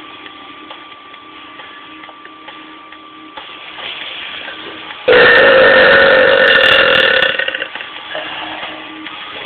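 A man belching: one loud, drawn-out burp that starts abruptly about five seconds in and lasts roughly two seconds before trailing off.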